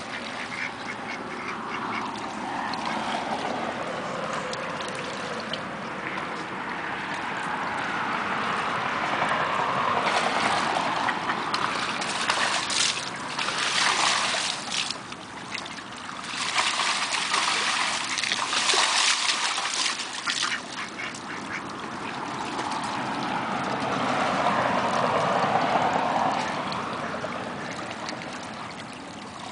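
Ducks diving and thrashing in a water-filled stock tank: water splashing and sloshing, with a run of heavy splashes in the middle, and some duck quacking.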